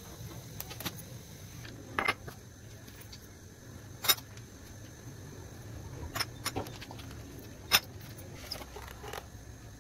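A metal spoon clinking against a small glass bowl while mayonnaise is scooped and stirred: several sharp separate clinks, the loudest about halfway and near the end, over a low steady hum.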